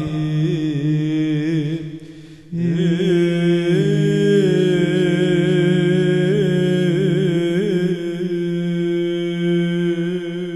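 Byzantine chant in the first mode: an ornamented, wordless-sounding melismatic vocal line over a steady low ison drone. It breaks off briefly about two seconds in, then resumes and settles into a long held closing note.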